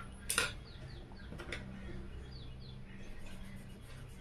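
A sharp tap about a third of a second in and a fainter one about a second later, with a few short, high, falling bird chirps in the background over a steady low hum.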